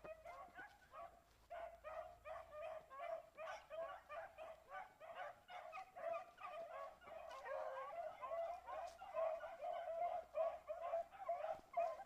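A pack of small rabbit hounds baying over and over, several calls a second from more than one dog, overlapping more thickly in the second half: the hounds giving voice as they run a rabbit's scent trail.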